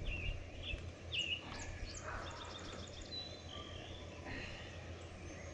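Songbirds calling: a few short high chirps, then a quick trill of repeated notes, then a couple of thin whistled notes, over a steady low outdoor rumble.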